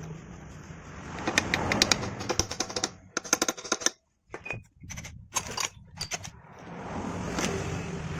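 Rapid metallic clicking and clinking of a socket and tools being fitted by hand to a damaged slotted lock nut on a motorcycle engine's crankcase, followed by a few separate knocks.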